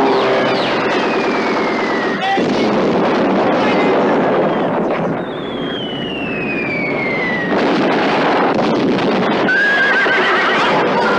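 Air-raid battle sound effects: two long falling whistles of dropping bombs, each about two seconds, over a dense, continuous din of explosions and aircraft. Horses whinny amid the chaos, with a sharp high call near the end.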